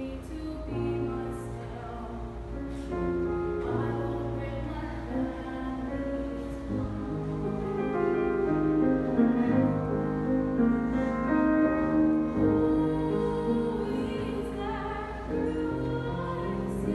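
A young girl singing a slow classical-style song, her voice wavering on sustained notes over an accompaniment of long, held low notes.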